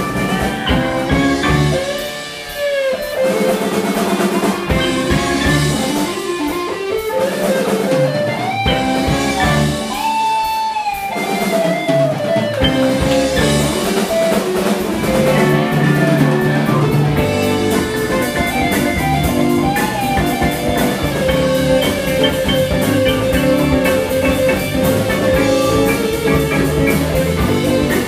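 Live rock band playing an instrumental passage on electric guitars, keyboard and drum kit, with lead guitar notes bending up and down. The low end gets heavier and fuller about twelve seconds in.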